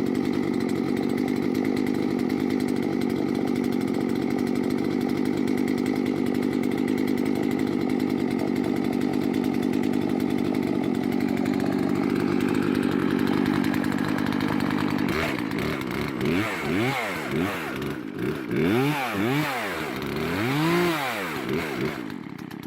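Poulan Pro PL3314 33cc two-stroke chainsaw running steadily at idle. From about two-thirds of the way in it is revved up and down over and over in rising and falling sweeps. It cuts off suddenly near the end.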